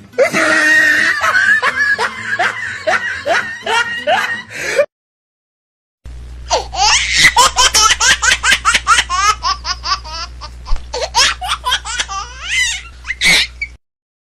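Laughter sound effects: a bout of hearty laughing for about five seconds, then a second of silence, then a longer bout of rapid, high-pitched laughing over a steady low hum.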